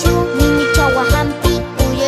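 Recorded music with a steady, quick beat and a bright pitched melody.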